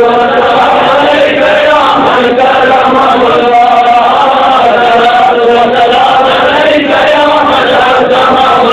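Men's voices chanting together in a slow devotional chant, holding long notes that move slowly up and down in pitch.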